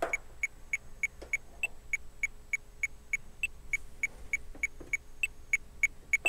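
Roland JUNO-DS metronome clicking steadily at about three clicks a second, with a higher accented click on every sixth beat marking each 6/8 bar at tempo 100, as the pattern sequencer counts in for recording.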